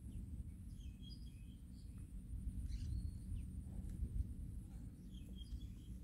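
Open-air field ambience: a low rumble of wind noise on the microphone, with a few faint bird chirps about a second in and again near the end.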